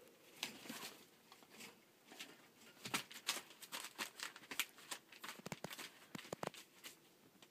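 Rough collie puppy and adult collie moving about on newspaper in a wire pen: faint crinkling of paper and scattered paw clicks, coming more often from about three seconds in, with a few light knocks.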